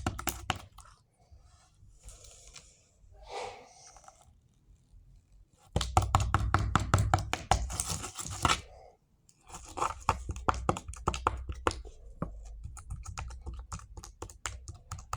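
Slime being squeezed and kneaded by hand, making two long runs of rapid clicks and pops, the first starting about six seconds in and the second about a second and a half after it ends.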